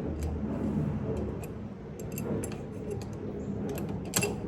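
Light metallic clicks and taps of hand tools and small metal parts being handled during a carburetor fitting, irregularly spaced, with one louder click near the end.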